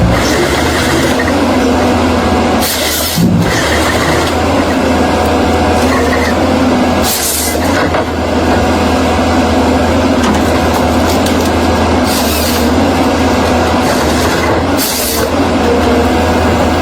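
Heavy land-clearing machine's diesel engine running steadily under load, with four short bursts of high hiss a few seconds apart.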